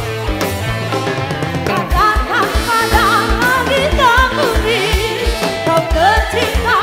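Live electone band music played loud through a large outdoor sound system: a steady kick-drum beat under sustained keyboard chords. From about two seconds in, a singer carries an ornamented, wavering melody over it.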